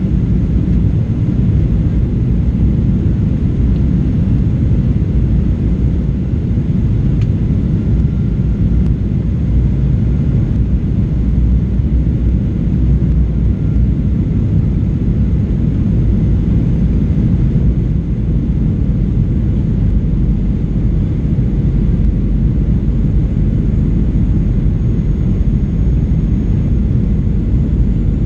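Steady cabin rumble of a Boeing 737-800 in descent, heard from a window seat over the wing: its CFM56 engines and the air rushing past the fuselage make a deep, even roar.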